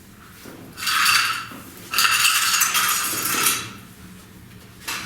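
Metal hand tools clattering and clinking as they are gathered up: a short rattle about a second in, then a longer, denser clatter, and a single knock near the end.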